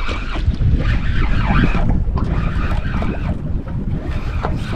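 Wind rumbling steadily on the microphone, with sea water washing around the boat.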